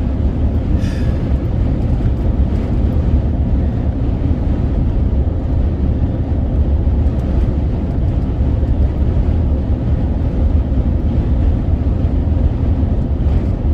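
Steady low rumble of road and wind noise inside a vehicle's cabin at highway speed, with strong gusty wind buffeting the vehicle.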